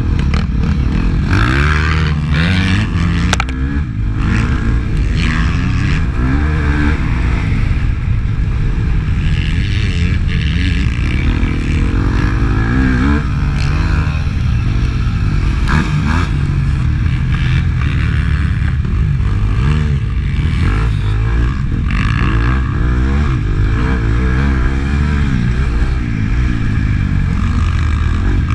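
Dirt bike engine revving hard and easing off again and again as it is ridden round a motocross track, heard from on board over a heavy low rumble.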